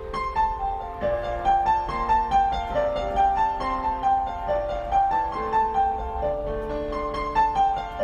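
Instrumental music: a gentle piano-like keyboard melody of quick, evenly paced notes over held lower chords.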